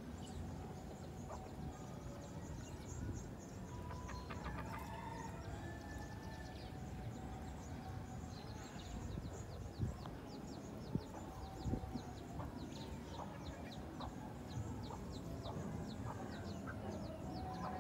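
Chickens clucking as they forage, over a steady low background rumble. A run of fast high ticks comes in about eight seconds in, and a few sharp knocks stand out around ten to twelve seconds.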